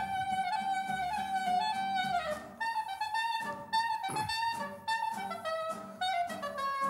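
Klezmer band music: a wind instrument carries an ornamented melody with bending slides, including a downward slide a little over two seconds in, over a steady beat.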